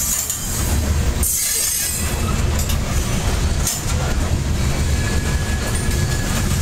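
Covered hopper cars of a CSX corn train rolling past, a steady low rumble of wheels on rail with a brief burst of high-pitched noise about a second in.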